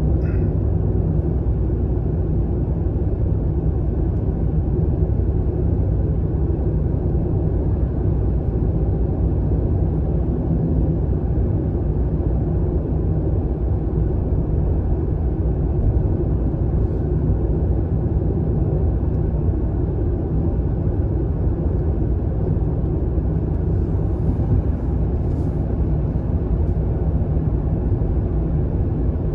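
Steady low rumble of a car's tyres and engine at expressway speed, heard inside the cabin.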